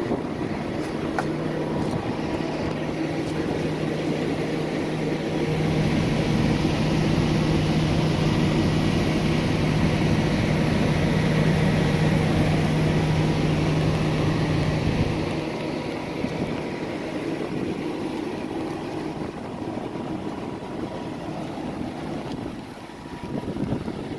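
Heavy diesel truck engine idling, a steady low hum that swells louder about five seconds in and drops back after about ten seconds.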